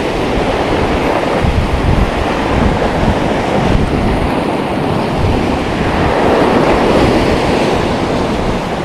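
Sea surf washing on the shore, with wind buffeting the microphone in a steady, loud rumble.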